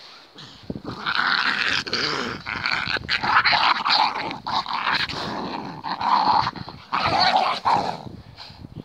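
Two Jack Russell terriers growling at each other as they fight over a stick. The growling starts about a second in, carries on with short breaks, and dies down near the end.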